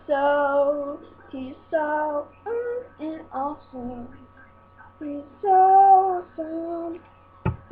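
A single voice singing a made-up theme song unaccompanied, a run of held notes with short breaks between them, over a faint steady hum. A sharp knock near the end.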